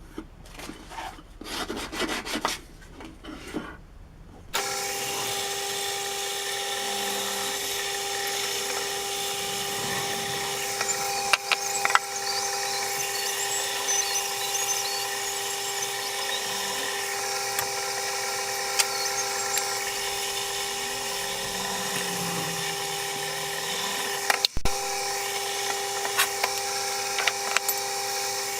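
A file scrapes in short strokes, filing the end of an aluminium T-track flush. About four seconds in, an electric power tool's motor starts and runs steadily at an even pitch.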